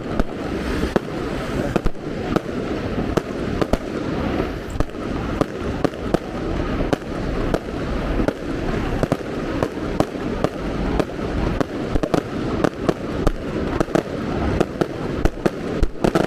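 Fireworks going off in a rapid, irregular string of sharp bangs and cracks, a few each second, over a steady background din.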